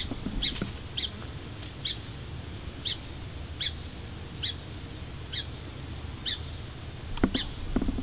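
A bird giving a short, high chirp over and over, about once a second, over a low steady rumble. Two sharp clicks come near the end.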